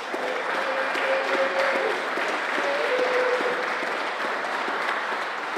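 Audience applauding at the end of a song: many hands clapping in a dense, steady clatter.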